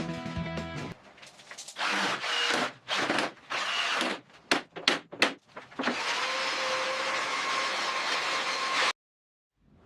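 Music for about the first second, then a run of short scraping or sanding strokes, then a power tool running steadily for about three seconds before cutting off suddenly near the end.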